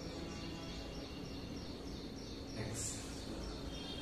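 Quiet room ambience: a low steady hum under faint, rapidly repeated high chirps, with a short breathy rush of an exhale a little under three seconds in.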